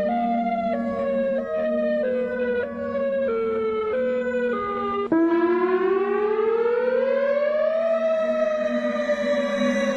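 Warning sirens: first a siren stepping down in pitch in short notes, then, after a sudden switch about five seconds in, a civil defense siren winding up in one slow rising wail and slowly falling again, over a steady low hum.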